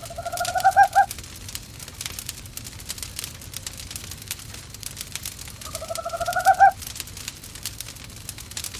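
An owl calling twice, about five seconds apart. Each call is a rapid quavering hoot about a second long that rises a little in pitch and swells toward its end. A fireplace crackles underneath.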